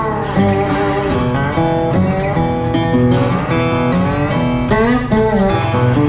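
Background music led by guitar, with strummed chords.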